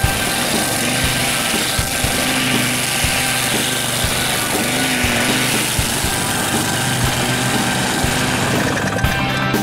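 Grillo X wheeled string trimmer running at full speed, its small mower-style engine droning steadily while the spinning nylon line cuts grass with a loud hiss.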